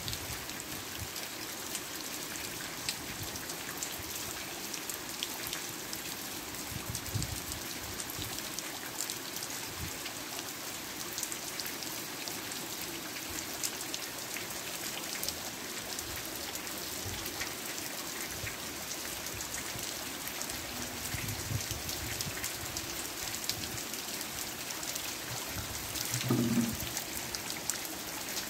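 Steady rain falling on a pond and the plants around it, a dense patter of drops on the water. Near the end comes a brief, louder low sound.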